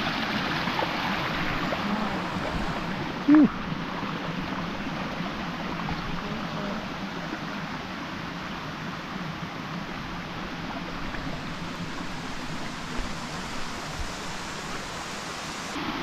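Steady rushing water from a waterfall and its stream. About three seconds in there is one brief vocal sound.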